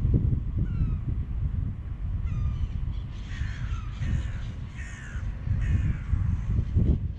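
Birds calling: a few short chirps, then from about three seconds in a run of five falling calls a little under a second apart, over a steady low rumble.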